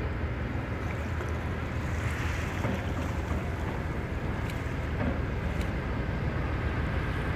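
Cargo ship's engine running with a steady low rumble as the ship passes close by.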